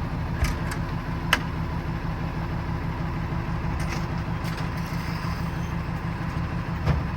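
A work truck's engine idling steadily, with a few short clicks over it.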